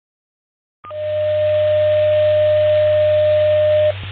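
Fire-department pager alert tones received over a radio scanner: a brief higher tone, then a single steady lower tone held for about three seconds, with radio hiss and a low hum underneath. The tones cut off abruptly before the voice page.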